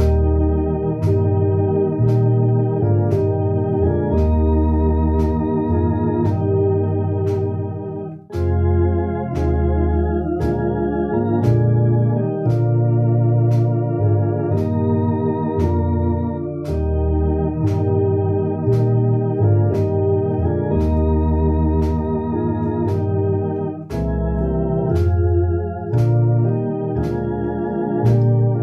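Electronic home organ playing a slow hymn at about 58 beats a minute in sustained, wavering chords over a low bass line. A thin tick recurs about twice a second. The chords break off briefly twice, about a third of the way in and again near the end.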